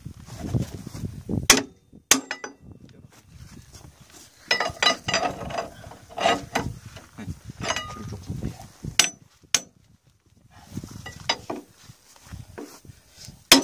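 Hand tools clinking and knocking on metal engine parts during teardown. Scattered single sharp metallic strikes, with a run of quick clinks in the middle.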